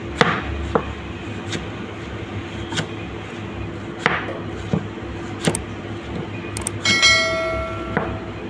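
A knife chopping onion on a cutting board in scattered strikes over a steady hum. About seven seconds in, something metallic rings for about a second.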